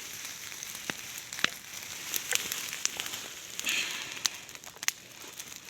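Bonfire of dodder-infested weeds burning: a steady hiss with irregular sharp pops and crackles.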